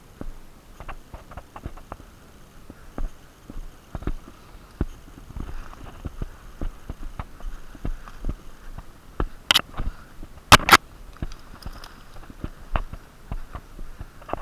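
Footsteps and small knocks from a person moving with a body-worn camera, irregular and soft, with two sharp, loud bursts of noise about two-thirds of the way through.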